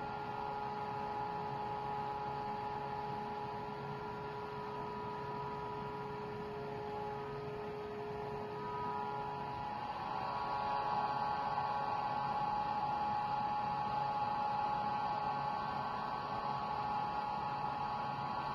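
Vibratory stress-relief vibrator, an electric motor with eccentric weights clamped to a large welded steel structure, running with a steady electric hum and several high steady tones. One tone drops out about nine seconds in and the higher tones grow louder just after.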